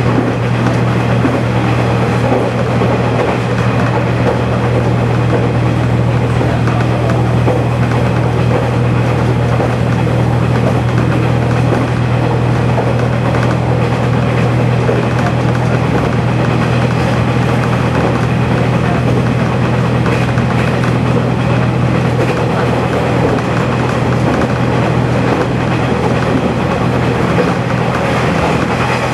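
KiHa 120 diesel railcar under way, heard from inside at the front of the car: the diesel engine runs with a steady low hum over the rumble of wheels on rail.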